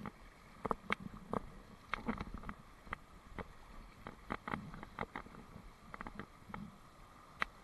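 Scattered sharp clicks and taps from handling a fly rod and reel while a hooked trout is played, coming every half second or so, over a low rumble and the faint rush of stream water.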